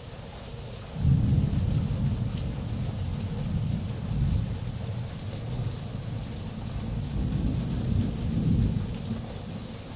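Heavy rain falling on a concrete courtyard, with runoff water splashing along the ground. A deep rumble starts suddenly about a second in and swells and fades for several seconds before easing off near the end.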